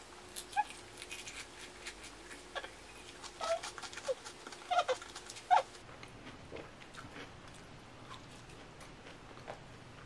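Chewing and crunching the chocolate-coated tip of a wafer ice cream cone: crisp crackles and small wet mouth clicks, busiest in the first half and sparse after.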